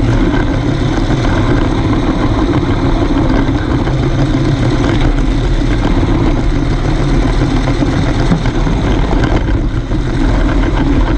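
Lego train running along plastic track: a steady, loud mix of motor and wheel noise, picked up close by a camera riding on the train.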